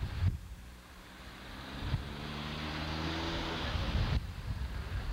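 Cars of a motorcade driving past on a wet road: engine hum and tyre hiss that build over the last few seconds, with wind buffeting the microphone.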